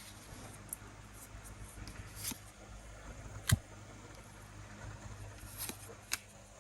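Faint handling noises of a Pokémon card booster pack being opened: soft rustling with a few short, sharp clicks, the loudest about three and a half seconds in.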